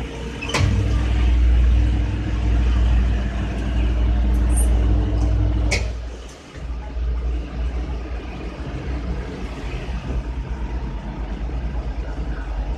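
Electric motorcycle tyre-changer machine: with a click about half a second in, its motor starts and runs with a steady, loud hum for about five seconds, then another click and the hum stops.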